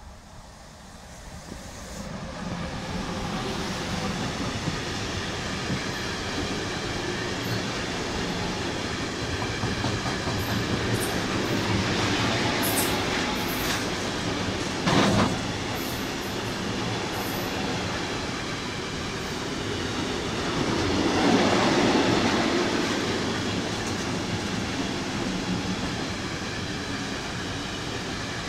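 Freight train passing close by: an E189 electric locomotive arrives about two seconds in, then a long rake of tank wagons rolls past with a steady rumble of steel wheels on the rails. There is a brief loud knock about halfway through and a swell in the noise a little later.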